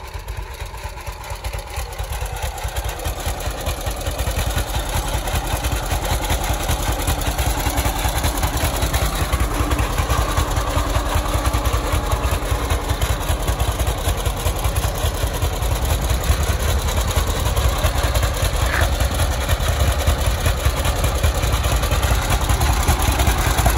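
John Deere H tractor's two-cylinder engine running as the tractor drives, getting louder over the first few seconds and then holding steady.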